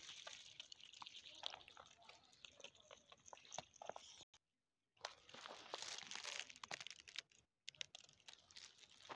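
Kittens crunching dry cat kibble, a faint, close crackle of many small clicks. It cuts out briefly a little after four seconds and then resumes.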